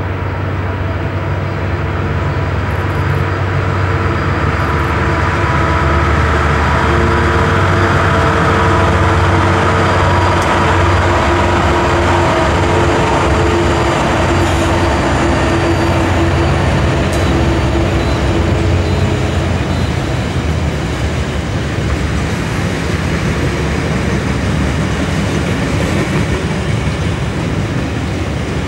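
Freight train passing at speed: a long string of box wagons rolls by with continuous wheel-and-rail rumble. Through the first two-thirds a low diesel-locomotive drone and steady tones are heard, fading out as the locomotives move away.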